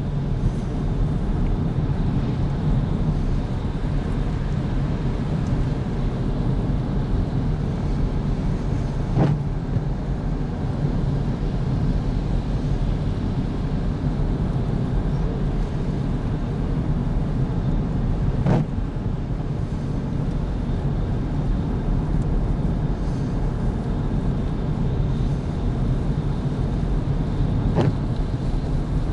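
Steady engine and road noise inside a car cabin as it drives along a highway, with a short click about every nine seconds.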